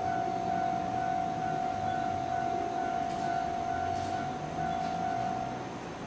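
Japanese level-crossing electronic warning bell ringing steadily while the barriers stay down, fading out shortly before the end.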